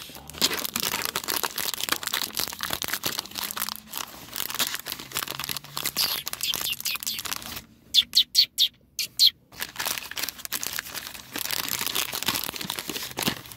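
Plastic film lid of a snack tray being peeled back, crinkling and tearing, with a quick run of short, loud, high squeaks about eight seconds in.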